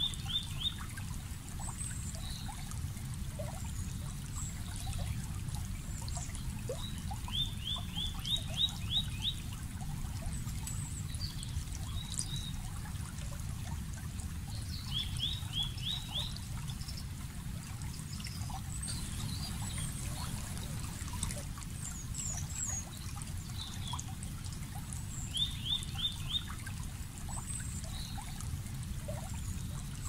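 Creek water running steadily with a low, even rush. Over it, a bird calls four times, each call a quick run of four to seven short rising notes, with other birds chirping faintly.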